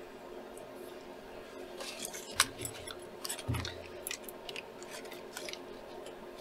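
Stainless steel chopsticks being handled, clicking together in a quick, irregular run of sharp clicks for a few seconds, with a soft low thud partway through.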